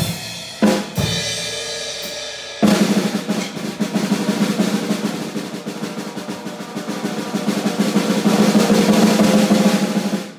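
Drum kit being played: a few single strikes that ring out, then a long, fast drum roll that builds louder and stops abruptly near the end.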